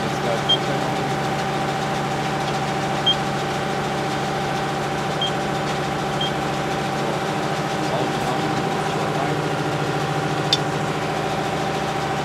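Deutz-Fahr DX 90 tractor's diesel engine running steadily at a constant speed, driving a round baler-wrapper combination. Four short, high electronic beeps come in the first half, and there is a single sharp click near the end.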